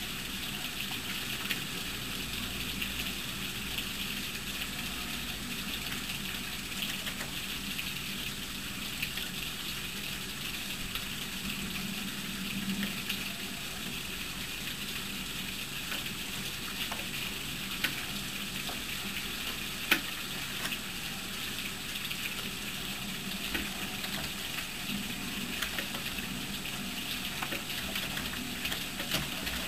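Steady rain falling during a thunderstorm, an even hiss with scattered sharp ticks, the loudest about two-thirds of the way through.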